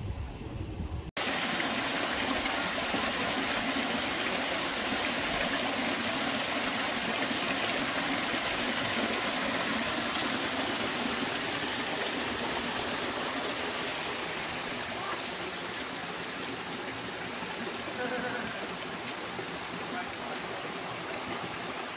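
A small waterfall cascading over rock into a pool: a steady rush of falling water. It begins suddenly about a second in, after a brief low rumble.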